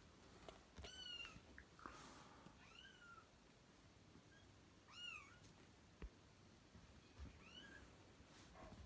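Kittens mewing: four faint, high-pitched mews that rise and fall, spaced a couple of seconds apart.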